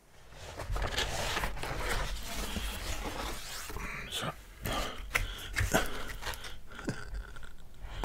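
Close-miked chewing of Domino's pizza: wet mouth clicks and smacks at an irregular pace.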